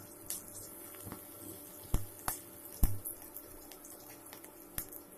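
Cumin seeds sizzling in hot oil in a steel pan: a steady hiss with sharp crackling pops every second or so, the loudest about two seconds in and again just before three seconds.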